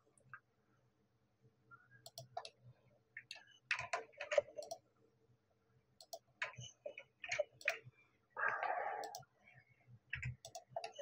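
Computer keyboard keys and mouse buttons clicking in scattered, irregular clusters with pauses between them, as keyboard shortcuts are pressed. There is a short, soft rustle of noise near the end.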